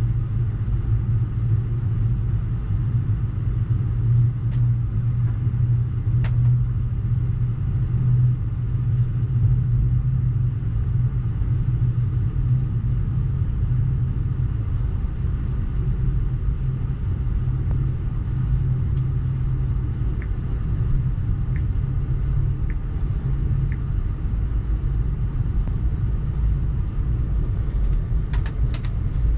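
Steady low rumble of a passenger train in motion, heard from inside a sleeper compartment, with a few faint clicks and rattles.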